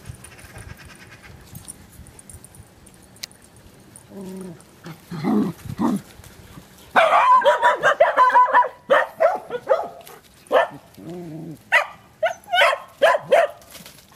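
Dogs barking: a few lower calls about four seconds in, then a quick run of loud barks from about seven seconds in, followed by separate barks.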